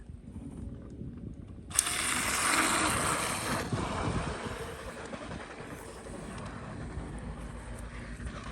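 Kokido Xtrovac 210 cordless pool vacuum switched on about two seconds in with a click, then a rushing noise of its motor drawing water. It is loudest for the first couple of seconds, then settles to a steadier, lower level.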